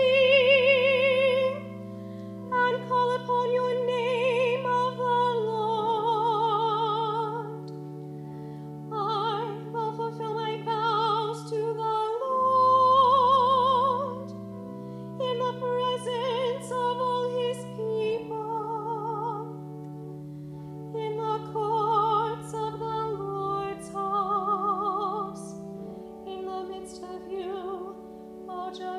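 Sung psalm: a voice with wide vibrato chanting the verses over steady held keyboard chords that change every two to six seconds.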